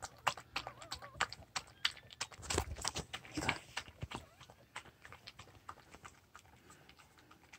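A dog lapping milk from a wooden dish: quick, irregular wet clicks of the tongue, several a second, thinning out over the last couple of seconds.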